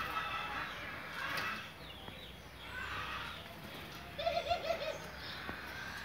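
Doves cooing: a short, rapidly pulsed coo about four seconds in, with fainter high chirps from other birds earlier.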